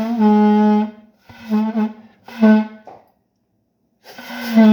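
Homemade saxophone of 3/4-inch PVC pipe with a balloon as the reed, blown in four notes at about the same pitch: a long note, two short ones, then another long note near the end.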